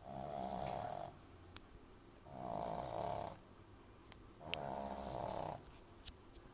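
French bulldog puppy snoring loudly in its sleep: three snores, each about a second long, coming roughly every two seconds.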